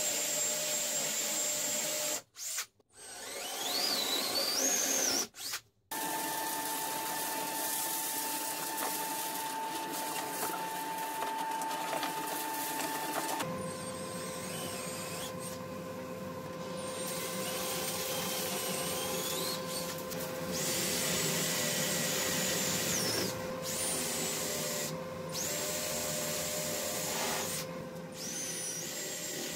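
Electric drill boring holes through a wooden top with a 20 mm forstner bit, the motor whining steadily under load, in several short edited stretches.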